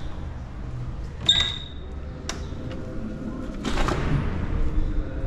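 Wooden, glass-panelled entrance door being passed through: a sharp metallic click with a short ring from the latch or handle about a second in, a softer click a second later, then a brief rush of noise as the door swings, all in a large, echoing hall.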